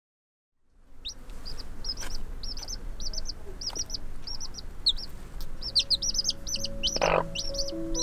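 Newly hatched chicks peeping, a rapid run of high-pitched cheeps that starts about a second in, with a short cluck from the mother hen near the end.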